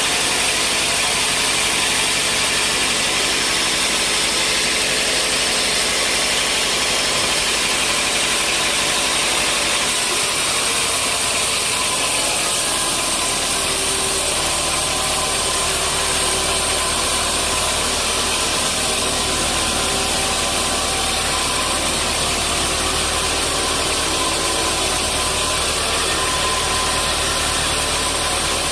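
Sawmill machinery running steadily with a loud, dense hiss and several steady machine tones. A deeper motor hum comes in about eleven seconds in.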